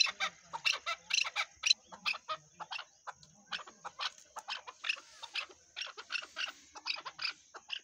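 Chukar partridge calling: a rapid run of sharp, repeated chuck notes, several a second. The notes are loudest in the first two seconds, thin out about three seconds in, then pick up again.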